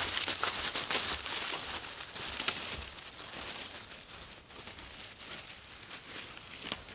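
Footsteps crunching through dry fallen leaves, loudest in the first couple of seconds and fading as the walker moves off. Lighter, scattered rustling of the leaves follows as a small dog runs through them.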